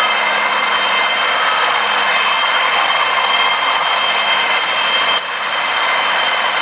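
IAR 330 Puma military helicopter flying low and close, loud and steady: rotor noise with the high, steady whine of its twin turboshaft engines. The level dips briefly about five seconds in.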